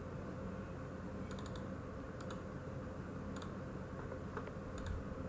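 A few scattered clicks of computer keys and mouse buttons, a small cluster about a second and a half in and single ones after, over a steady low hum.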